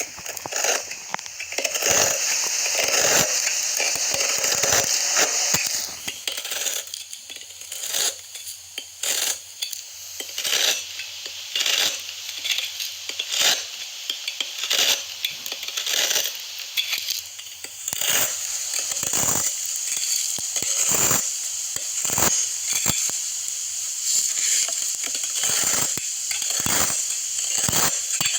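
Knife cutting and carving bar soap into cubes: stretches of steady crisp scraping, with a run of separate sharp crackling cuts in the middle.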